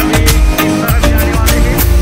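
Loud background music with a steady drum beat.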